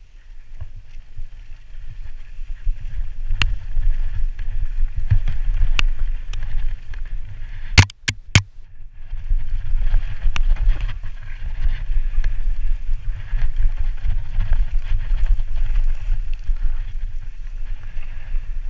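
Mountain bike being ridden fast down a dirt singletrack, heard from a helmet-mounted camera: steady wind rumble on the microphone with tyre and rolling noise, and the bike rattling. A cluster of sharp knocks about eight seconds in, then a brief lull.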